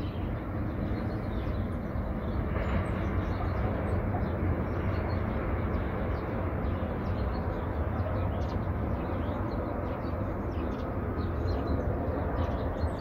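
Outdoor dawn ambience: a steady low rumble, with many small birds chirping briefly and repeatedly over it.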